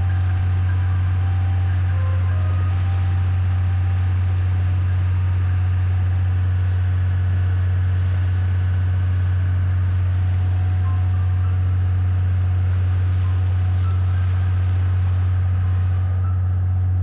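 Sightseeing boat's engine running steadily on board: a loud, constant low drone.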